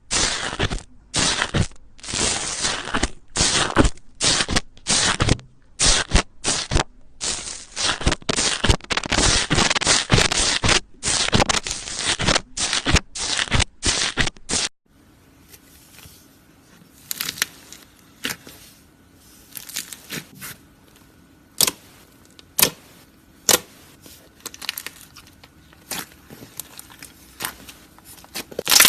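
Close-up crunching and crackling from ASMR sound clips: dense, fast crackles and crunches for about half the time, then a cut to a quieter clip with a faint hum and scattered sharp snaps and clicks.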